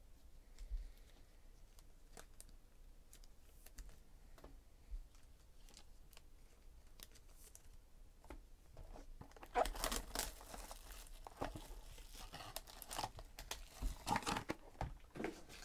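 Faint scattered taps and clicks of handling. From about halfway through comes loud tearing and crinkling as a trading-card box is opened and its foil-wrapped pack is handled.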